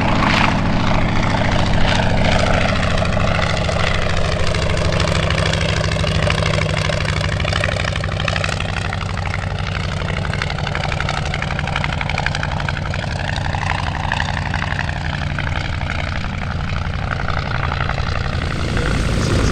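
Propeller-driven aircraft engine running steadily in flight, a continuous drone whose tone slowly shifts and swirls as the aircraft moves.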